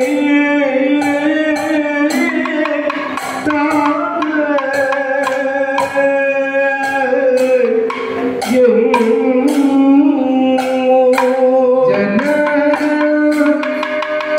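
Kathakali music: male singers sing a sustained, gliding melody, accompanied by frequent sharp percussion strokes from drum and hand cymbals.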